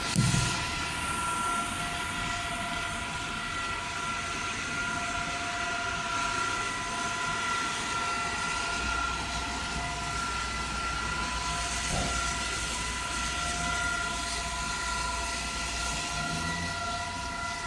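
EK 1200 civil-defence siren sounding a steady note made of several pitches held together, heard at a distance over a low background rumble.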